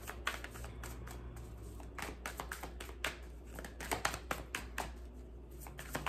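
Tarot cards being handled and shuffled: a run of light, irregular clicks and taps of card stock, several a second at times.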